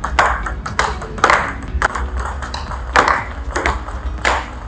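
Table tennis ball in a blocking rally: quick, fairly regular clicks as the ball strikes the table and the rubber-faced rackets, roughly two to three a second.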